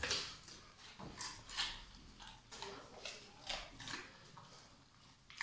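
Dog chewing and crunching food, a series of short irregular crunches about one or two a second.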